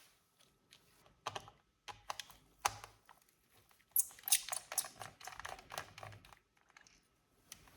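Irregular small clicks, taps and brief scrapes of hands working on an open laptop's plastic and metal parts, clustering into a busier run of clicking a few seconds in.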